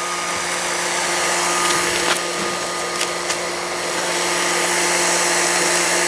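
Volcano bubble machine's small electric fan motor running with a steady whirring hum, with a few light clicks about two and three seconds in.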